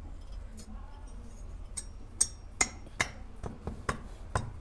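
Cylinder head of a TVS XL Super moped engine being seated by hand onto the cylinder and its studs, giving a string of light, sharp clicks and taps, roughly two or three a second, from about two seconds in.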